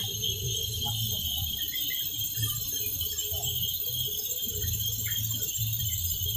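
Steady high-pitched insect buzzing, with scattered faint chirps and a low rumble underneath.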